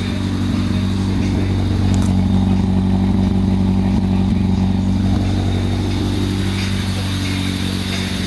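Honda D16Y7 1.6-litre four-cylinder engine idling steadily, a little louder for a few seconds in the middle; the owner suspects a misfire.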